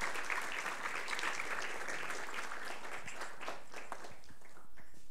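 Audience applauding, dense at first, then thinning to a few scattered claps and dying away near the end.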